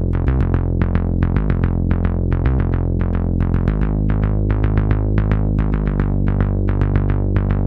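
Background music: a synthesizer keyboard line of evenly repeating notes over sustained low tones, with no drums.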